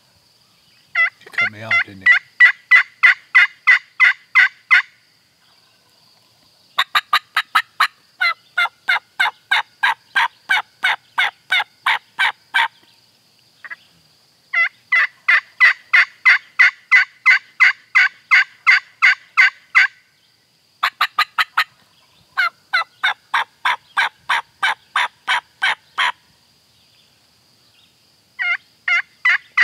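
Turkey call worked by a hunter: loud runs of sharp, evenly spaced hen yelps, about four or five a second, in several bursts of a few seconds each with short pauses between. This is aggressive calling to pull in a gobbler that has been answering.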